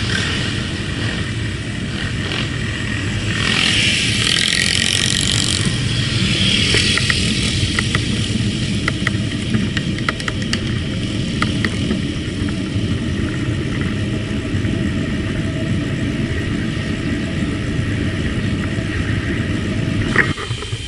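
Steady wind and road rumble on the microphone of a camera riding on a moving bicycle. A passing motor vehicle swells up briefly about four seconds in, and scattered light ticks come between about seven and twelve seconds in.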